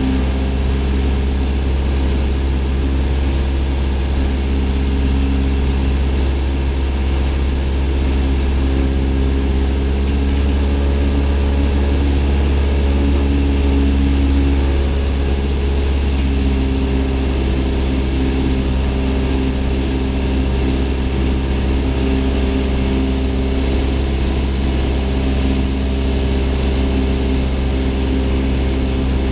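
Cessna 172's piston engine and propeller droning steadily, heard inside the cabin while on approach, with a slight shift in the engine note partway through.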